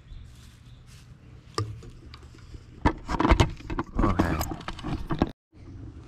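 Close handling noise from the camera being moved about: a run of loud clicks, knocks and rubbing. It is followed by a brief complete dropout in the audio, as when recording stops and restarts.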